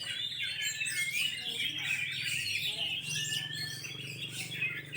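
Several oriental magpie-robins (kacer) singing at once, a dense run of overlapping whistles and chirps with no break, over a low steady hum.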